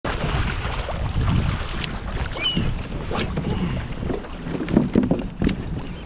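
Wind buffeting the microphone over water lapping against a kayak hull, with a few light knocks and a brief high squeak about two and a half seconds in.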